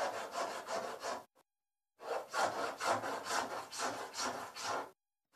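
A hacksaw blade scraped back and forth over a car's sheet-metal bodywork, in rasping strokes about three a second. It pauses a little over a second in and stops near the end. This is hand-scraping the rough, broken-up surface of a straightened and welded panel before filler goes on.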